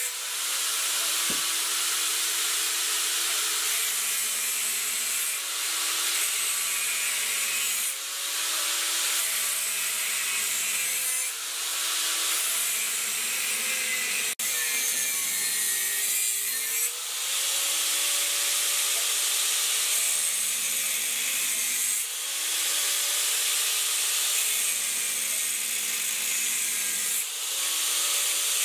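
A handheld power tool abrading a workpiece, with a steady motor whine that sags and recovers under load and a rasping scrape in passes of two to three seconds, separated by brief lifts.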